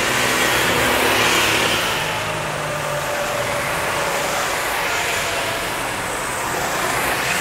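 Sodi RT8 rental karts' four-stroke engines running at speed as karts pass close by on a wet track, with tyre spray hiss under the engine note. Loudest about a second in, easing off, then building again near the end as another kart comes past.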